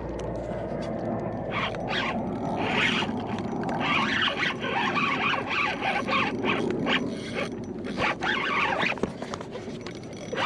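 Large spinning reel under load as a hooked fish is fought: the reel is cranked hard while the drag gives line in squealing, zipping bursts, heaviest through the middle.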